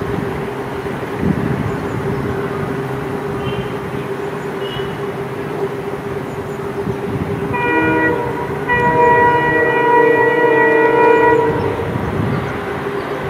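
Twin EMD WDG4 diesel freight locomotives running under power with a steady engine hum and rail noise. About eight seconds in, the multi-tone locomotive horn sounds a short blast and then a longer one of about three seconds.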